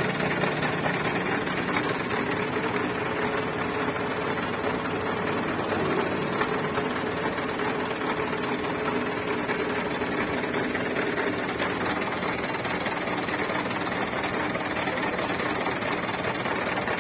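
Mitsubishi Canter HD 125 dump truck's diesel engine idling steadily, heard from beside the chassis.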